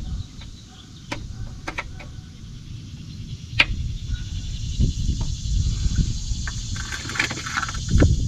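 Scattered sharp metallic clicks and knocks, probably a magnetic pickup tool and a small metal part knocking against the Jeep's metal, over a low rumble of handling and background noise. The loudest click comes about three and a half seconds in, and a cluster of them comes near the end.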